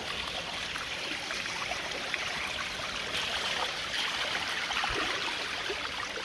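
Thin sheet of water running down the sloped concrete face of a dam: a steady trickling splash with many small drips.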